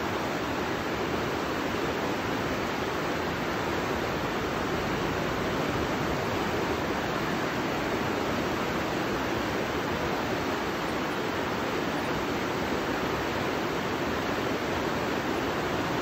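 River rapids rushing over boulders: a steady, unbroken rush of white water.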